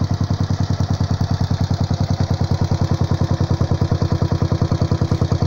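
Small single-cylinder motorcycle engine idling steadily, with even exhaust pulses of about ten a second.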